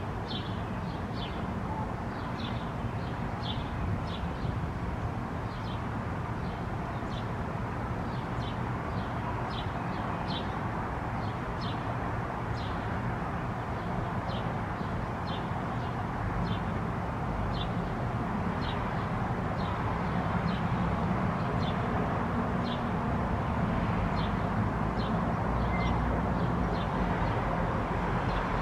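A small bird chirping over and over, short high chirps about twice a second, over a steady low background rumble.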